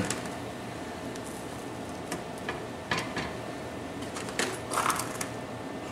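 A few light clicks and scrapes of a metal fork against a large hand-forged steel frying pan as a tortilla is laid in, with a short louder cluster of them about four and a half seconds in, over a steady background hum.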